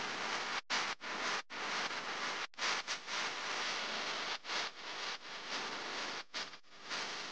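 Steady static-like hiss, broken several times by brief, sudden dropouts.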